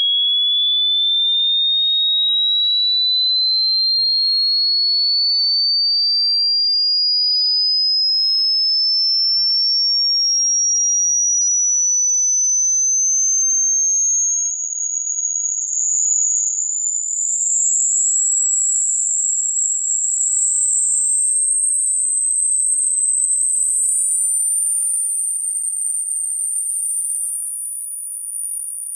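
A hearing-test frequency sweep: a single pure sine tone rising slowly and steadily in pitch, from a high whistle to a very high, thin whine. Over the second half it turns slightly uneven and wavers in loudness.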